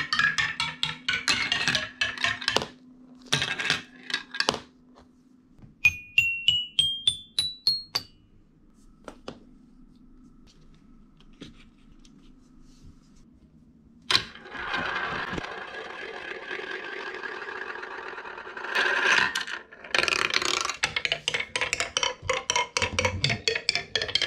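Marbles clattering down the wooden leaves of Calacolo marble trees in fast runs of clicks, at the start and again from about twenty seconds in. Around six seconds in, a marble plays about eight rising notes on a toy xylophone, and from about fourteen to nineteen seconds a marble rolls along plastic track.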